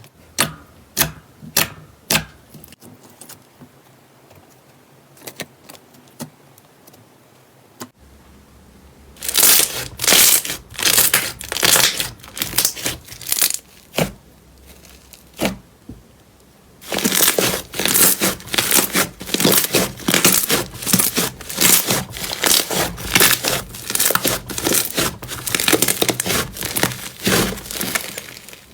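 Slime being worked by hand, crackling and popping. There are a few separate pops at first, then a quiet stretch, then dense runs of crackles with a short break a little past the middle.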